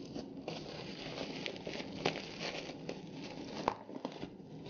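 Clear plastic wrapping crinkling and crackling as hands unwrap a loose action figure, with scattered small clicks.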